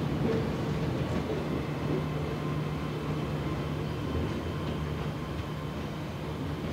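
Hakone Tozan Railway electric train running along the track: a steady low hum that slowly fades as the train pulls away.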